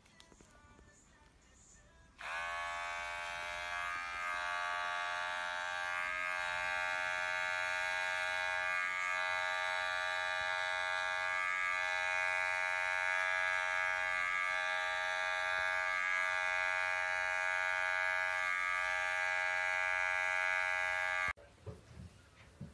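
Electric hair clippers buzzing steadily while shaving a cat's fur. The motor switches on about two seconds in and cuts off suddenly near the end.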